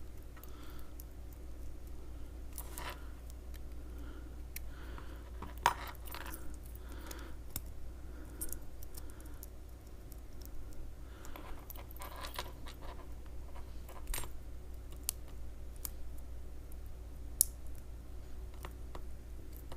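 Small metal parts of a Brinks R60 discus lock and the tools working them clicking and ticking irregularly as the lock is taken apart and its tiny pins come out, with two sharper clicks about 6 s and 17 s in. A steady low hum runs underneath.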